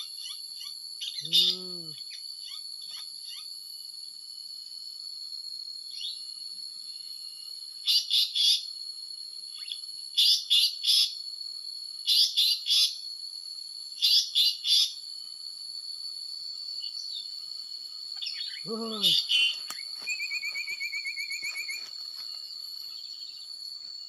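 Harsh calls of an Asian paradise flycatcher, repeated in four evenly spaced pairs about two seconds apart, over a steady high drone of forest insects. Two short low calls come about a second in and near the end, and a fast pulsing trill follows the second one.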